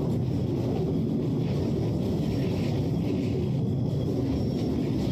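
Steady low rumbling drone with no breaks, presented as one of the unexplained 'sky sounds' heard around the world.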